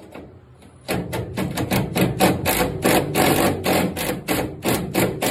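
Cordless 40-volt impact driver hammering in rapid pulses as it drives a toolbox mounting bolt, starting about a second in.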